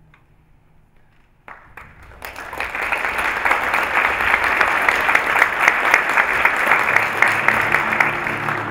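Audience applauding in a recital hall. It starts about a second and a half in and quickly builds to steady, dense clapping, which begins to ease near the end as music comes in.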